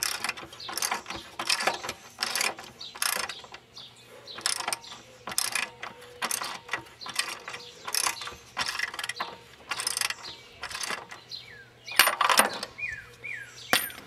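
Socket ratchet wrench clicking in repeated back-and-forth strokes while it tightens a nut onto a transmission mount stud, a burst of clicks on each return stroke.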